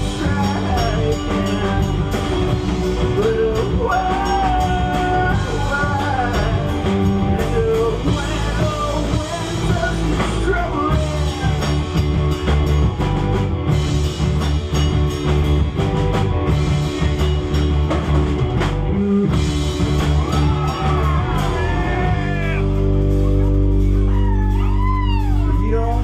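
A rock band playing live: drum kit and guitars with a singing voice over them. About three-quarters of the way through, the band settles on a long held low note while higher notes bend up and down above it.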